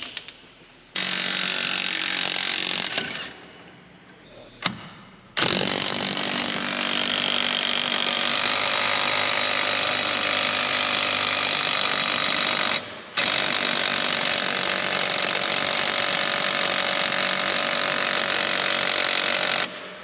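Impact wrench running the screw of a ball joint press on a Jeep's front steering knuckle, pressing a ball joint through its bore. It hammers in three runs: a short burst about a second in, then two long runs of several seconds split by a brief pause near the middle.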